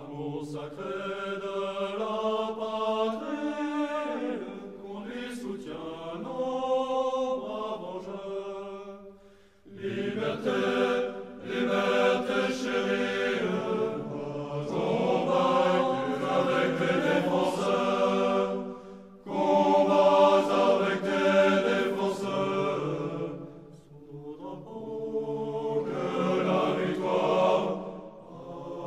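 Choral music: voices singing slow, held chords, with brief pauses about ten and nineteen seconds in.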